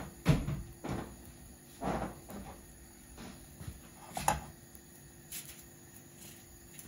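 A few separate dull knocks and thumps: the loudest about a third of a second in, then softer ones near one second, two seconds and four seconds, over a faint steady background.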